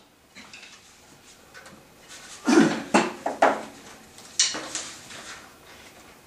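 A few scattered sharp knocks and clicks, clustered between about two and a half and four and a half seconds in, with no drumming or fifing; the loudest comes about two and a half seconds in.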